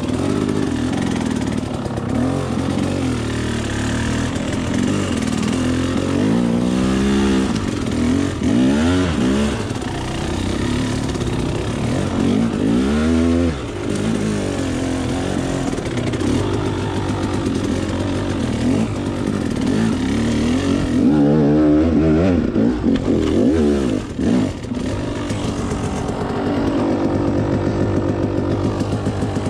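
Off-road dirt bike engine running under load, revving up and down again and again, its pitch climbing and dropping as the throttle is opened and closed.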